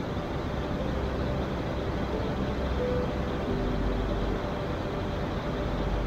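River water rushing steadily over rapids and a waterfall.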